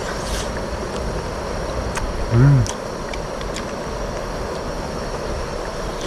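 A steady low rushing noise, with a man's short low hum that rises and falls about two and a half seconds in, and a few light clicks.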